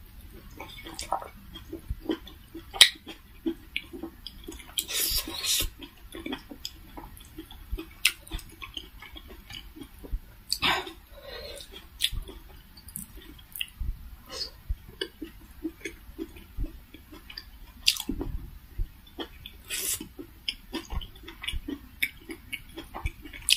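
Close-miked chewing of steamed vegetable momos dipped in tomato chutney: soft wet chewing with many sharp mouth clicks and lip smacks, and a few short hissing sounds.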